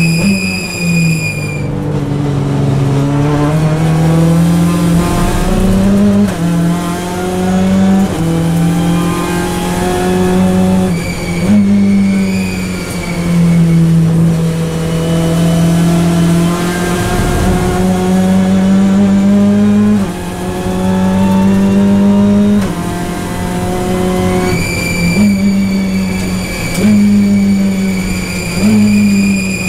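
Hyundai i30 N TCR race car's turbocharged four-cylinder engine at racing speed, heard from inside the cabin: revs climb through the gears, drop at each quick shift and fall away under braking. A high steady whine comes in at the start, around twelve seconds in and again near the end.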